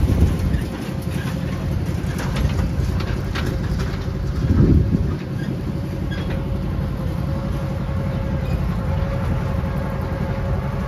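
Miniature zoo train running, heard from aboard: a steady low rumble with a steady whine above it. There are a few clicks between about two and three seconds in, and the rumble swells briefly at about four and a half seconds.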